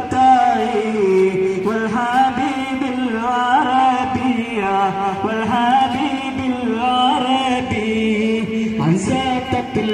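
Islamic devotional song in praise of the Prophet (a madh song): one voice singing a winding, ornamented melody over a steady held drone.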